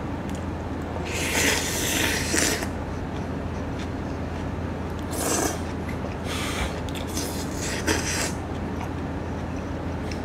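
Close-miked eating: a wooden ladle and chopsticks scrape up leftover noodles from a metal tray, with noisy slurping mouthfuls. The sounds come in three bursts, about a second in, around five seconds, and from six to eight seconds, over a steady low hum.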